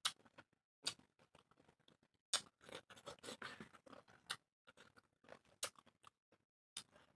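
Close-miked eating sounds: irregular wet clicks, smacks and short crunches of someone chewing food.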